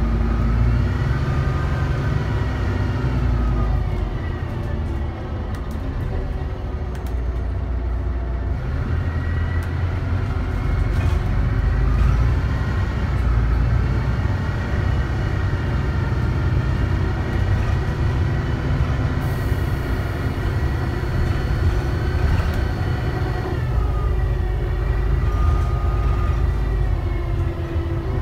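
DAF DB250 double-decker bus running on the road: a heavy low diesel rumble with whining tones that rise and fall in pitch as it speeds up and slows down.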